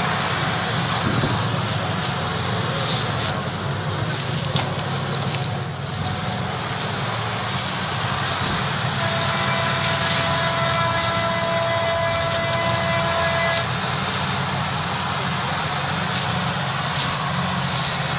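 Several big farm tractors' diesel engines running together under load, pulling a bogged-down Massey Ferguson 8450 out of the mud. A steady high whine sounds for about four and a half seconds in the middle.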